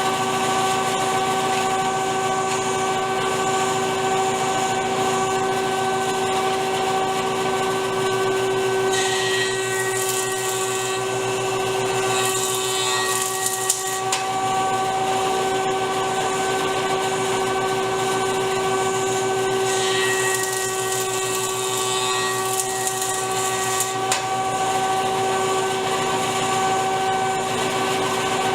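Stationary woodworking power tool running steadily with a motor hum, feeding two boards through: two stretches of wood-cutting noise, one about a third of the way in and one about two-thirds of the way in.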